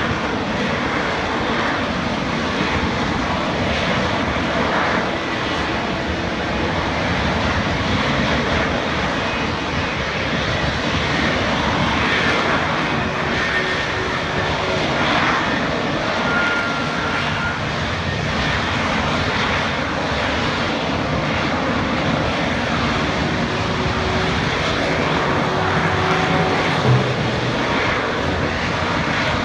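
F-35B Lightning II hovering on its single Pratt & Whitney F135 jet engine and lift fan: a loud, steady jet roar that swells and eases slightly without stopping. A brief thump sounds near the end.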